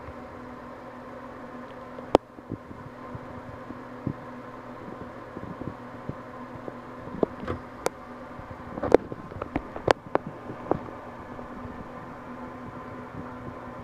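Steady machine hum, like a running fan, with a scattering of sharp clicks and light taps, most of them bunched in the middle and the loudest about two seconds in and around nine to ten seconds in.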